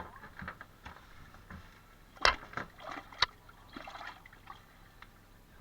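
Water sloshing and trickling, with scattered small clicks and two sharp knocks about two and three seconds in.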